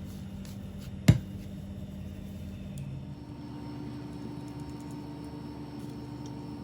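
A single sharp knock about a second in, over a steady low hum.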